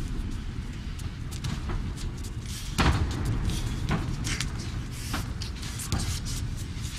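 Wrestlers grappling in a wrestling ring: a handful of sharp thuds and slaps of bodies and feet on the ring, the loudest about three seconds in, over a steady low rumble.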